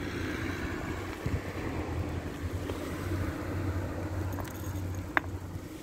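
Steady low outdoor rumble with a light hiss over it, and one brief faint squeak about five seconds in.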